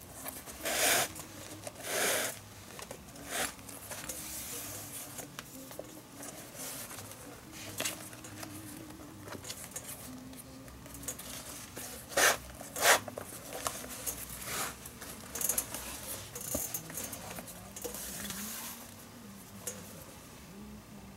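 Leather lace being threaded and drawn through the lacing holes of a leather baseball glove, with rustling and scraping as the glove is handled. There are a few louder rasps, two about one and two seconds in and two close together near the middle.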